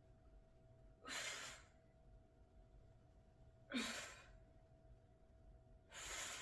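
A woman breathing out hard through the mouth, three strong exhalations about two and a half seconds apart, one with each rep of her kettlebell glute bridges; the second starts with a short low grunt.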